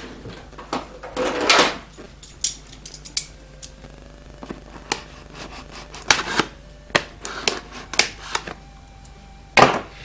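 A cardboard box being handled on a desk: scattered taps, knocks and scrapes, with a longer scrape about a second in and a louder knock near the end.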